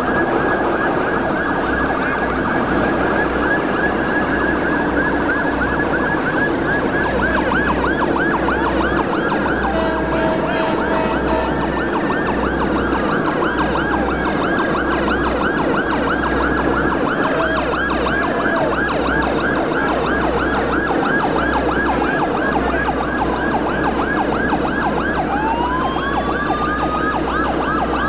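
Several boat sirens sound together, wailing and yelping over one another without a break, as a harbor salute from the boats on the water, the fireboat among them. A short steady tone sounds about ten seconds in, and rising siren glides come near the end.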